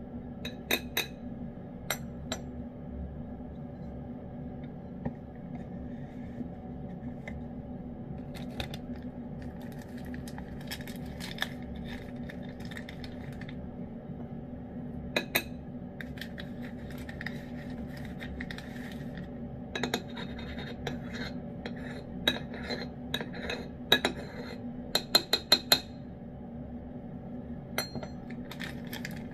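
Metal spoon scraping and clinking against a tin can of wet cat food and the cat's dish. The clicks are scattered, with a busy run of them about two-thirds of the way through, over a steady low hum.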